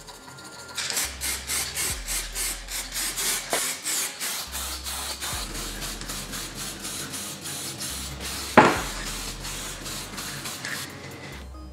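Rapid back-and-forth scrubbing strokes of hand abrasion on a motorcycle part, about three a second, with one sharp knock past the middle. The strokes stop just before the end.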